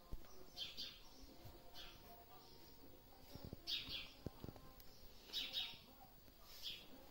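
Faint bird chirps: short, high-pitched calls repeating irregularly, about one every second or so.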